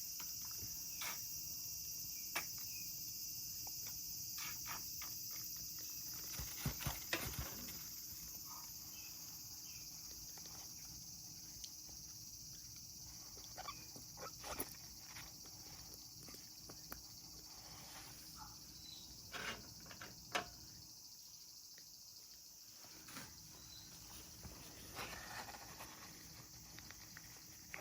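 African grey parrot chick giving short, scattered calls over a steady high-pitched hiss, with a few calls close together about a quarter of the way in. The breeder hears them as lonely calling, the chick being kept on its own.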